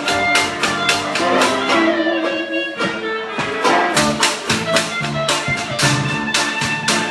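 Live jazz band playing a song with a steady, even beat and several pitched instruments.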